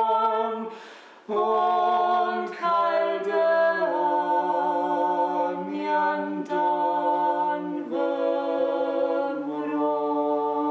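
Several voices singing a cappella in slow, held chords that change every second or two, with a short break for breath about a second in.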